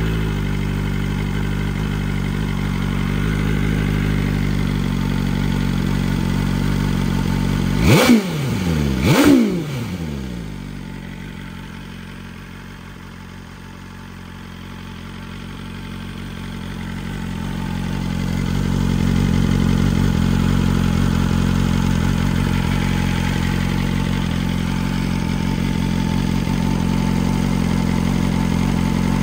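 A 2023 BMW M1000R's 999 cc inline-four idles through an SC Project slip-on exhaust. About eight seconds in it is blipped twice in quick succession, each rev rising sharply and dropping back to idle. The idle grows fainter for a few seconds in the middle, then louder again.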